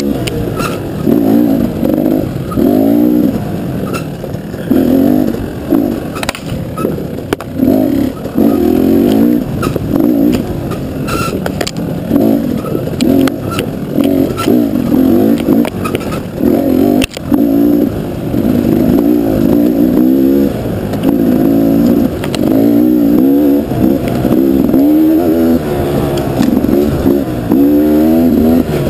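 KTM dual-sport motorcycle engine under a rider's throttle on a trail, revving up and falling back again and again in short surges every second or two, with a few sharp knocks now and then.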